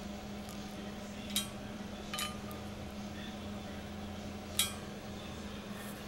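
Three light metallic clinks, each ringing briefly, over a steady low hum: steel parts or tools being handled while a backhoe's pins and bushings are assembled.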